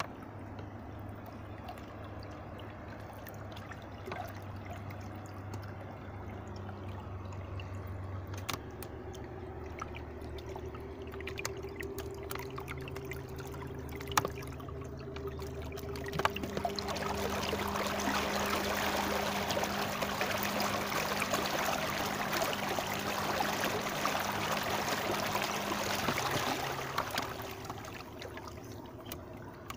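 Fisher 55 electric trolling motor running, a steady low hum whose pitch steps up a few times as the speed is raised. Water rushes and trickles past the small inflatable boat, growing much louder from a little past the middle as the boat speeds up, then easing near the end.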